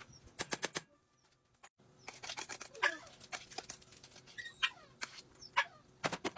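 Metal utensil scraping and tapping against a stainless steel pot while mashed potatoes are scooped out, in quick runs of clicks, with a few short falling squeaks.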